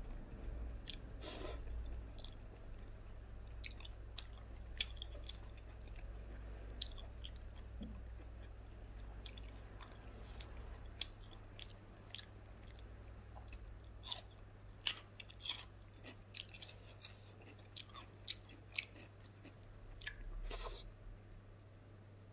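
Close-up chewing of food, with irregular wet mouth clicks and smacks, over a steady low hum.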